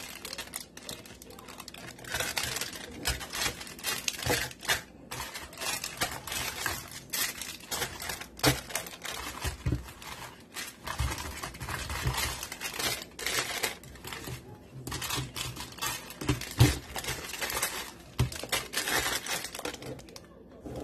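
Plastic snack wrappers and a plastic bag crinkling as they are handled and dropped into a clear plastic container, in a dense, irregular rustle. A few sharper knocks come through, about a third of the way in and again near the end.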